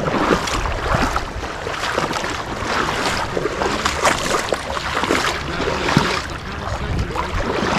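River water rushing and splashing, with many small sharp splashes throughout.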